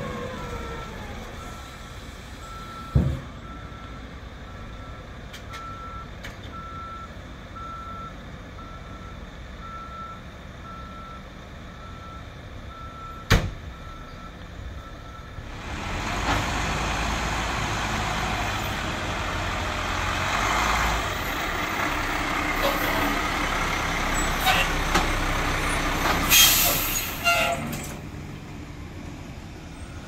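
Heavy construction equipment at work: a backup alarm beeping about once a second, broken by two loud clanks. About halfway through, a diesel engine grows louder and runs on under the beeps' end, with knocks and a short hiss near the end.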